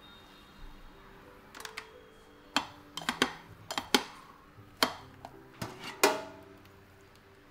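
Kitchen cookware clinking and knocking: a rice paddle against a rice cooker's inner pot and a stainless steel steamer tray being handled. It is a run of sharp knocks from about two and a half seconds in, the loudest a metal clank near the end with a short ring.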